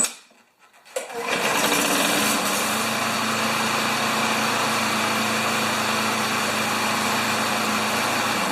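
Tecumseh small lawn mower engine catching about a second in and then running steadily at a constant speed.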